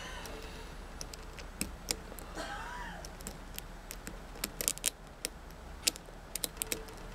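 Lock pick clicking and tapping against the threaded security pins of a 5-pin Schlage cylinder while it sits in a false set: scattered sharp small metallic clicks, coming in quick clusters about four and a half and six and a half seconds in.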